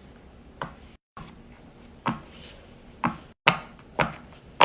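Silicone pop-it fidget bubbles being pressed, giving about six sharp pops at irregular intervals.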